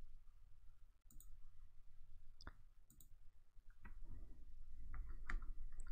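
Computer mouse clicking, about half a dozen separate clicks that come closer together in the second half, over a low hum: points being placed with a drawing tool.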